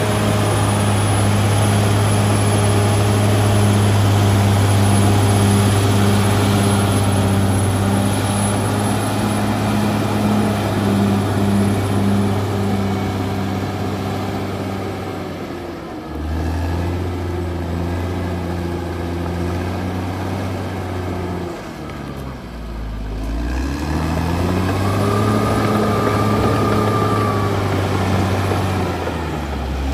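Caterpillar D6R XL bulldozer's diesel engine running hard as the dozer works soil. Its pitch drops about halfway through, sags lower a few seconds later, then climbs back up.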